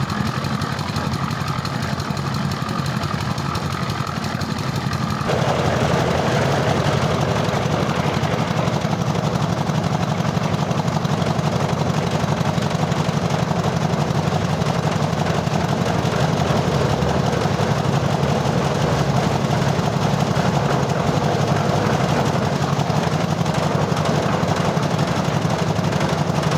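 Concrete mixer's engine running steadily with a rapid rattling knock. About five seconds in the sound steps up louder and fuller.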